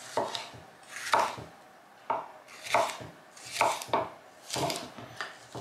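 Bell pepper being sliced with a Benchmade Leuku 202 bushcraft knife, its 3 mm blade making about eight crisp cuts a little under a second apart.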